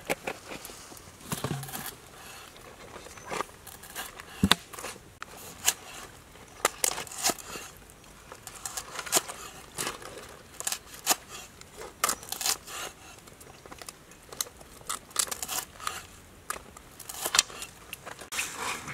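Cleaver chopping lemongrass stalks on a round wooden chopping board: a run of sharp, irregular knocks, about one to two a second.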